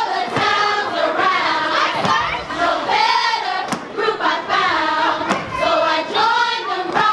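A group of women singing a sorority probate chant together, with a few sharp percussive hits.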